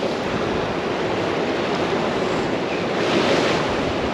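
Surf washing against shore rocks, a steady rushing wash that swells a little about three seconds in, with wind buffeting the microphone.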